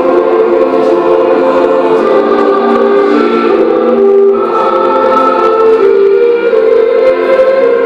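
Music from a large ensemble playing slow, long-held chords that change step by step.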